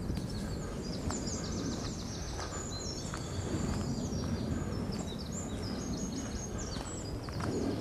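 Several small songbirds singing busily, in quick runs of high falling chirps, over a constant low rumble.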